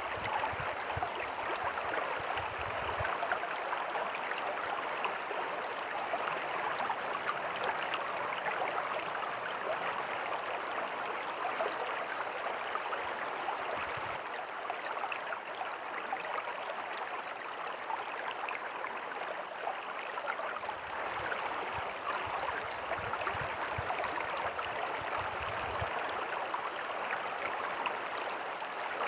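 Small creek with a tiny waterfall, water running and splashing steadily over rocks.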